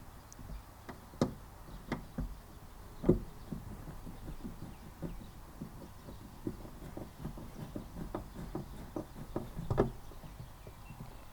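Irregular knocks and clicks of hands and tools working on a car's door: plastic trim and the fitted speaker being handled and pressed into place.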